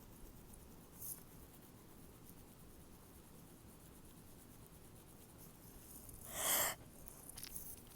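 Faint room noise, then one short breathy burst of a person's breath through the nose and mouth about six seconds in, part of a stifled sneeze.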